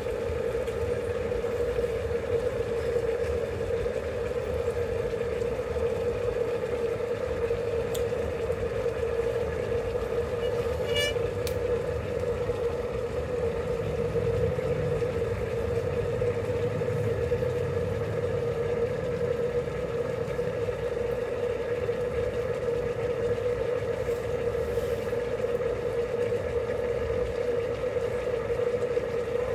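A steady mechanical hum over a low rumble, unchanging throughout. One light click about eight seconds in and a quick little rattle of clicks about three seconds later.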